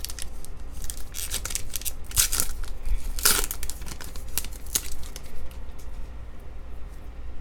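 Foil wrapper of a baseball card pack being torn open and crinkled, in a string of short rips that thin out after about five seconds.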